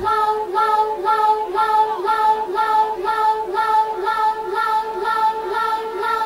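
Electronic dance music from a DJ set in a breakdown: the bass is gone and one long high note is held over light ticks about twice a second.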